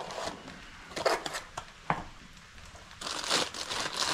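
Plastic bag and paper packaging crinkling and rustling as a new ignition power pack is unwrapped by hand, with a few sharp clicks about one and two seconds in and a longer stretch of rustling near the end.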